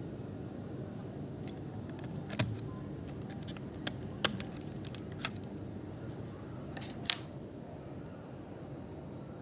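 A handful of sharp clicks and taps from handling the laptop and its parts while working on it, about five spread over several seconds, the loudest about two and four seconds in, over a steady low hum.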